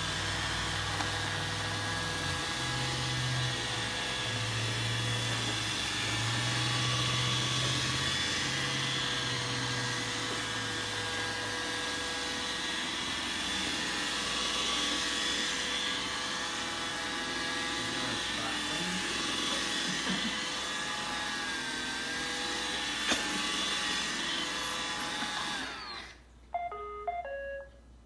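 iRobot Roomba robot vacuum running: a steady whir of its motors and brushes, with a low hum that wavers in the first half. Near the end it stops abruptly, and a few short electronic tones follow.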